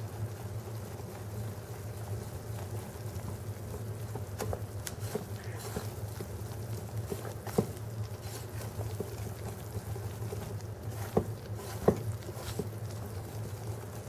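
Wire whisk stirring wet pancake batter in a bowl: a soft, wet slopping with several sharp taps of the whisk against the bowl, the loudest about halfway through and near the end, over a steady low hum.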